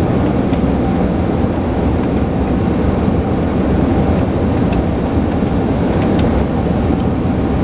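Steady cabin noise of a Cessna 208 Caravan in flight, its single PT6A turboprop engine and propeller running with rushing airflow, a deep, even sound heard from inside the cabin during the descent to land.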